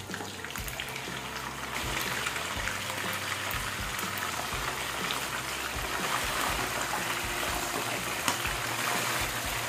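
Trevally (talakitok) steaks frying in hot cooking oil in a pan: steady sizzling and crackling that grows louder about two seconds in as more pieces go into the oil. One sharp click near the end.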